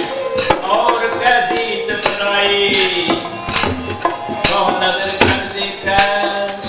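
Sikh devotional kirtan: voices singing a hymn over a steady held drone note, with a percussion stroke about every three-quarters of a second.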